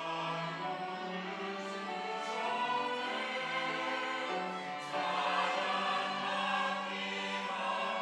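Mixed church choir of women's and men's voices singing a slow, sustained anthem, with instrumental accompaniment. The sound swells louder about five seconds in.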